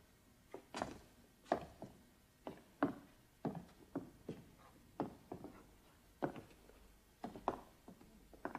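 Footsteps on wooden boards at an unhurried walking pace, about two steps a second.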